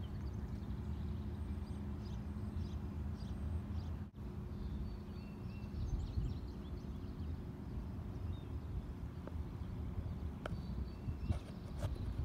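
Outdoor ambience: a steady low rumble with a faint steady hum, and scattered faint bird chirps.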